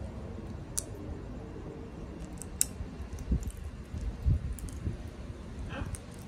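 Amazon parrots eating from a coconut-shell bowl: sharp, scattered clicks of beaks cracking and picking at food, with a couple of dull thumps.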